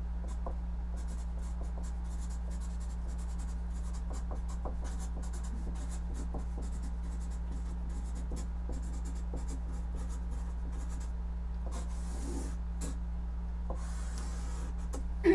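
Marker writing on a large paper sheet taped to a wall: a rapid run of short pen strokes for the words, then two longer strokes near the end as a box is drawn around them. A steady low hum lies underneath.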